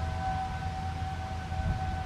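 ASC RM-127 three-phase single-tone siren sounding, its tone holding a steady pitch over a low rumble.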